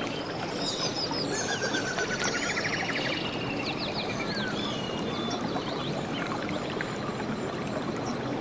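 Creek water flowing steadily, with small birds singing over it: rapid trills and short chirps, busiest in the first half.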